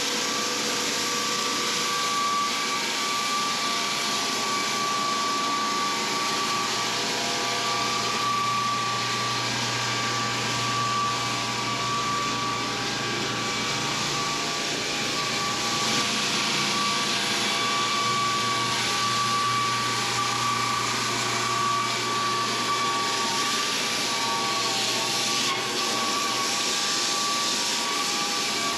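Electric floor sander running steadily over a wooden floor, its abrasive rasping against the boards over a constant motor whine.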